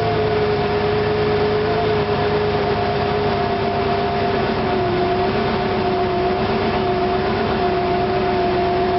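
Car engine idling just after a rev, its steady hum settling slightly lower in pitch. It is a car with a rough idle.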